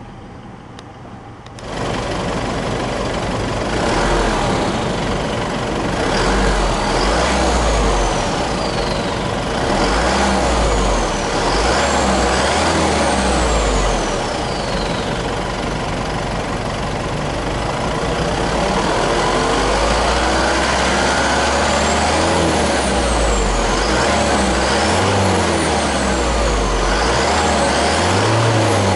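Mazda BT-50's 3.0 L 4JJ3-TCX four-cylinder turbodiesel running with the bonnet open. It is quieter at first and louder from about two seconds in. Its pitch rises and falls several times as it is revved, with a high whistle sliding down in pitch each time.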